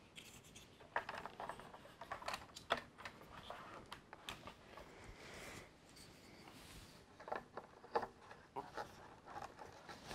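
Faint, scattered clicks and taps of hard plastic parts being handled and fitted onto a Hasbro Vintage Collection X-wing toy model.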